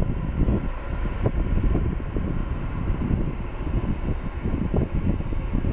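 Low, rumbling, gusty roar of a Boeing 777-200ER's two Pratt & Whitney PW4070 turbofans at climb power, the airliner climbing away after takeoff, slowly fading.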